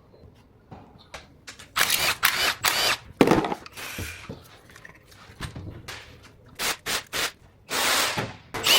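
Workshop noise: a string of clicks and clatters from tools and parts, with several louder short bursts of noise.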